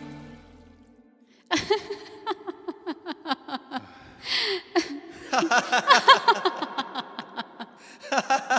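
The song's music fades out in the first second. Then a man laughs in a run of short, repeated bursts with breaths between them.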